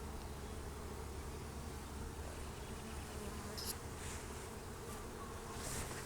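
Swarm of Italian honeybees buzzing steadily around an open hive while freshly installed from a package.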